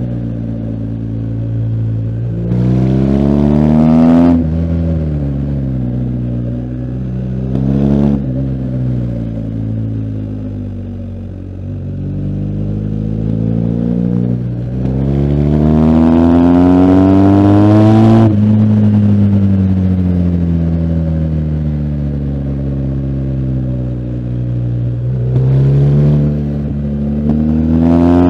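BMW R1250GS Adventure's boxer-twin engine under way, revs climbing hard several times, longest about halfway through, and each climb ending in a sudden drop in pitch. Between the pulls the revs sink slowly as the throttle is rolled off.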